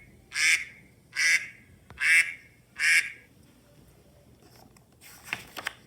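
Duck quacking: four short, loud quacks about a second apart, followed by a few faint clicks near the end.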